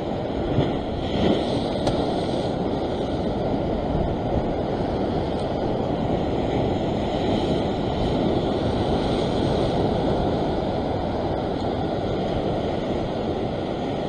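Ocean waves surging and washing over a rock ledge, a steady rush of surf with wind.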